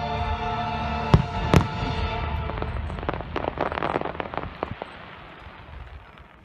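Fireworks going off: two loud bangs about a second in, then a run of crackling that fades away. Music plays underneath and fades out over the first half.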